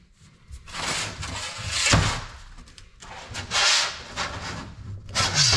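A large sheet of 0.090-inch 5052 aluminium is handled and flexed by hand off a metal workbench as it is bent along scored lines. The metal gives off swelling rattling and scraping noise, with a sharp knock about two seconds in.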